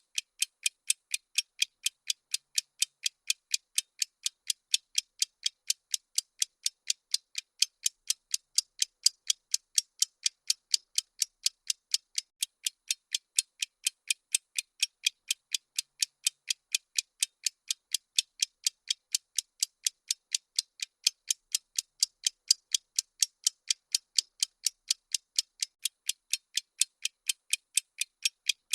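Countdown-timer ticking sound effect: a steady, even train of thin, high clicks, several a second, with no change in pace or level.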